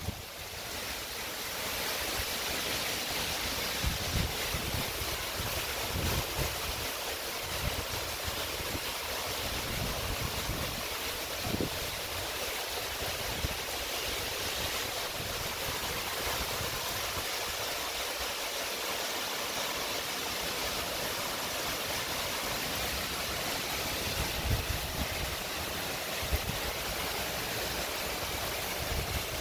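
Heavy rain pouring down in a steady hiss, with short low rumbles of wind gusting against the microphone now and then.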